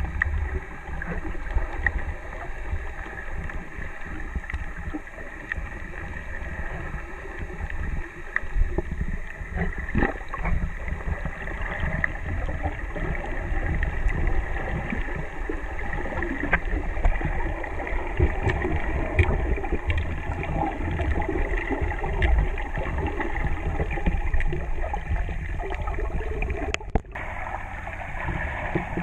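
Muffled water noise picked up by a camera held underwater while snorkeling: a steady low rumble with gurgling and a few faint clicks. The sound cuts out for a moment near the end.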